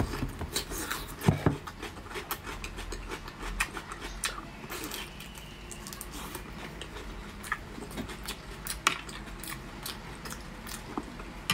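Close-up eating sounds: chewing and lip smacking on braised pork, with many short sticky clicks as the meat is pulled apart by hand and sauce is spooned over it.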